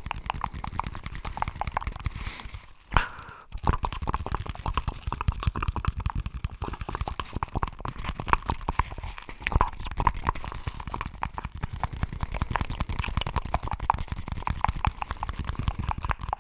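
Close-miked ASMR mouth sounds and paper-roll handling: a dense, continuous run of small wet clicks and papery crackles, with one sharper pop about three seconds in followed by a brief lull.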